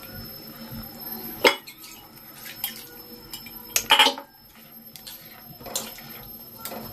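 Metal cookware clinking: a few sharp knocks as a spoon in a steel kadai and an aluminium pressure cooker are handled, the loudest about four seconds in with a brief ring.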